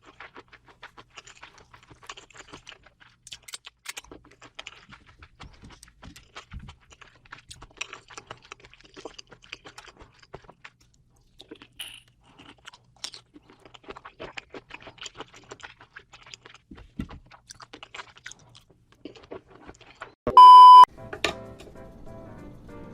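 Close-up chewing of food, a steady run of small wet clicks and crunches. About 20 seconds in comes one loud electronic beep of about half a second, the loudest sound here. Quiet background music follows it.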